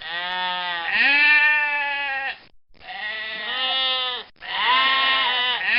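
Livestock bleating: three long calls in a row, the first about two and a half seconds long, each bending in pitch.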